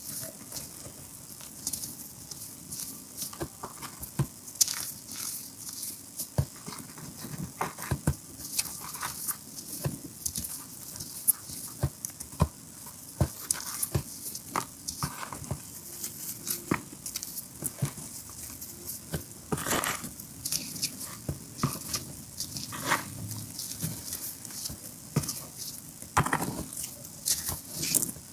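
Hands crushing and squeezing broken gym chalk reform chunks and loose chalk powder: an irregular run of dry crunches and crackles, with a few louder crunches now and then.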